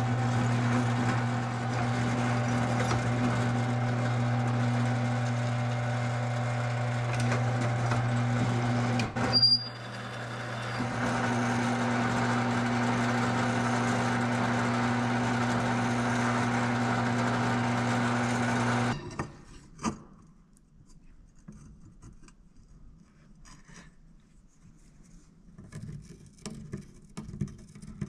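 An electric shop tool running steadily with a strong hum, interrupted briefly about nine seconds in, then shutting off about two-thirds of the way through, leaving faint light taps and clicks.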